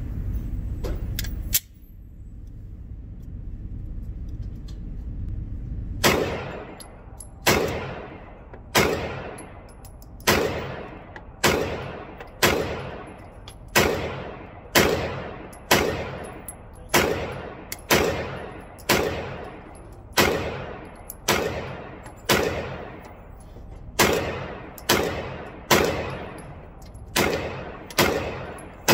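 A Glock 45 9mm pistol fired slowly, about twenty shots roughly a second apart, each echoing in an indoor range. Before the shooting starts there are a few sharp clicks as the pistol is handled.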